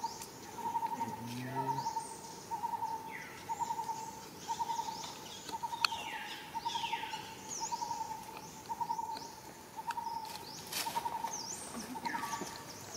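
Birds calling: a short trilled note at a steady pitch repeats about every 0.7 seconds, while other birds give quick high chirps that fall in pitch.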